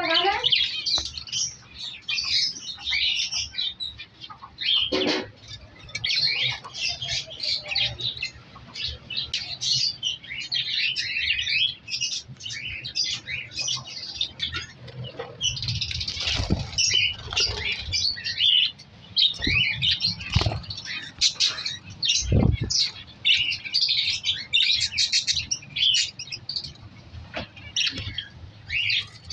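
A flock of budgerigars chirping and chattering without a break, many birds at once, with a few dull thumps scattered through.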